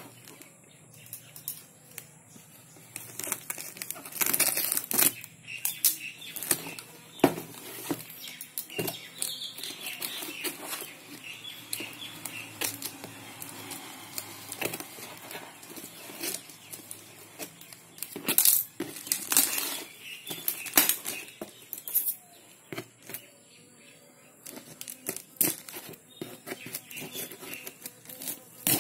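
Scissors cutting and tearing through plastic packing tape on a cardboard parcel, with crinkling plastic and rustling cardboard in irregular bursts.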